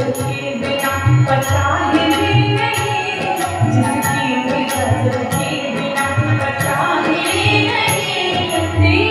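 Indian devotional song: women's voices singing over a harmonium, with a tabla keeping time in deep strokes and small manjira hand cymbals clinking about twice a second.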